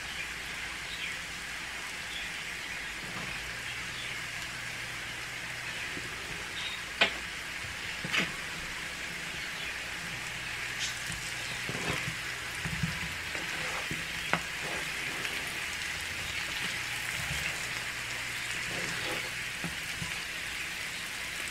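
Baby potatoes sizzling steadily as they fry in a skillet. A spoon knocks and scrapes against the pan a few times as they are stirred.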